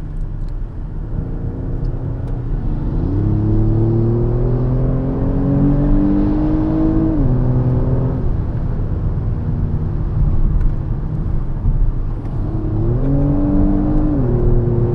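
Car engine heard from inside the cabin, accelerating hard: its pitch climbs for about four seconds, drops at an upshift, and climbs and drops again shortly before the end, over a steady low road and tyre rumble.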